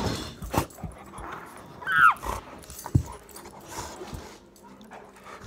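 A dog's short falling whine about two seconds in, among the thumps and scuffling of dogs rolling and playing on carpet, with one heavier thump about three seconds in.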